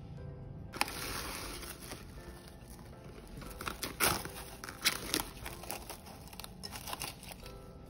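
Plastic cling wrap pulled off its roll and crinkling as it is stretched over a glass bowl, with sharp crackles and snaps, the loudest about four seconds in. Soft background music runs underneath.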